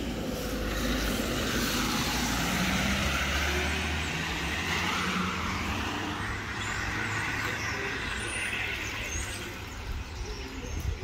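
Street traffic on a wet road: a steady hiss of tyres on wet asphalt with a low engine rumble under it.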